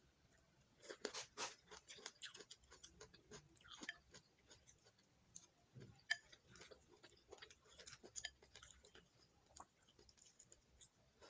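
Close-miked chewing and mouth sounds of someone eating braised pork and boiled cabbage: a dense, irregular run of small wet clicks and soft crunches starting about a second in.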